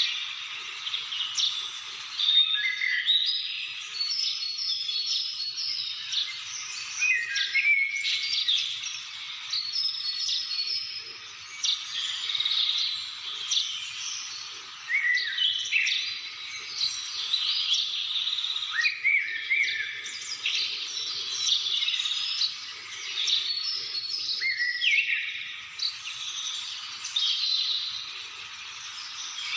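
Several birds singing and calling at once, a dense chorus of overlapping chirps, trills and short whistles.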